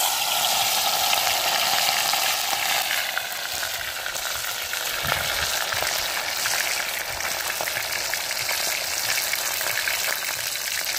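Whole fish sizzling in hot oil in a cast-iron pot, a steady hiss, somewhat stronger in the first few seconds after the fish goes in.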